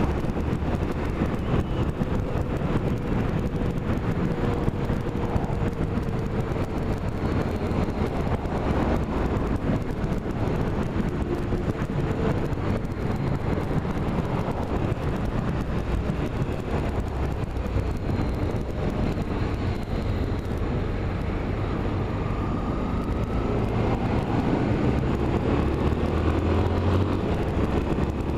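Road vehicle driving, with a steady rumble of engine and road noise and some wind; it grows a little louder near the end.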